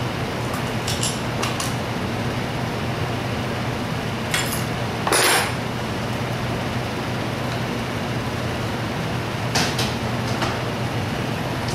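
Metal tools and engine parts clinking and knocking as a small two-stroke engine is worked on by hand, a handful of separate clinks with the loudest about five seconds in, over a steady hum.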